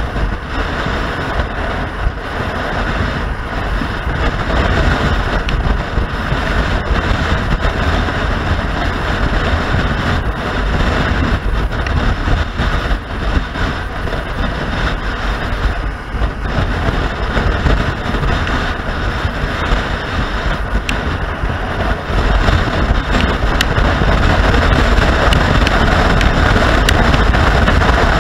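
Wind rushing over the microphone of a moving motorcycle, with the engine and road noise underneath. It gets louder about two-thirds of the way through.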